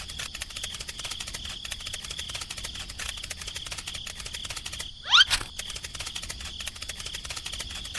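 Cartoon sound effects: a rapid, even pattering like tiny scurrying footsteps over a faint steady high tone, with a quick rising whistle-like sweep about five seconds in, the loudest sound.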